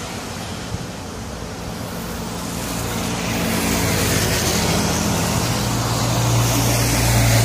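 Road traffic on rain-wet asphalt: a steady hiss of tyres on the wet road. Over the second half a heavy vehicle's engine drone grows louder as it approaches.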